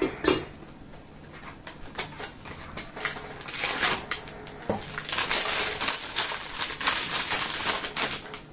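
Packaging of a miniature figure being handled and torn open by hand: a few sharp clicks and taps at first, then dense crinkling and rustling from about the middle on.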